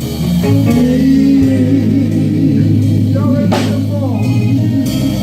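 Gospel band music between sung lines: a bass line with guitar and drums, a cymbal crash about three and a half seconds in.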